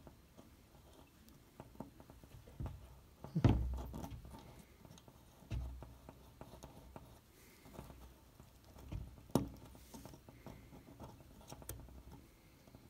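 Soft handling noises: scattered rustles and a few low knocks as the arrow and its aluminium broadhead are turned over in the fingers, the loudest knock about three and a half seconds in.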